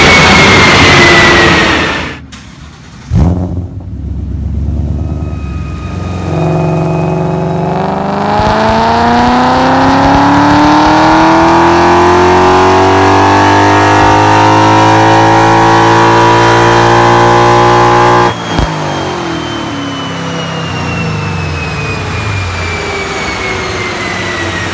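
A 2015 Ford Mustang GT's 5.0-litre V8 through an American Racing full exhaust, on a chassis dyno. It drops off about two seconds in, with a single sharp bang a second later. It then makes a long full-throttle pull, the pitch climbing steadily for about twelve seconds, and cuts off abruptly. After the cut it coasts down with a falling whine.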